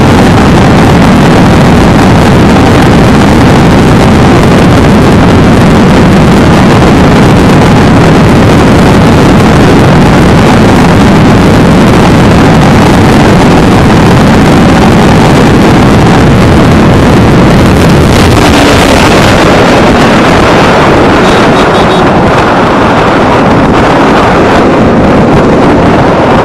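Heavy wind rush on the microphone at about 175 km/h on a Kawasaki Ninja 300, with the bike's parallel-twin engine running at high revs under it. The sound changes near the end as the bike slows and the wind eases a little.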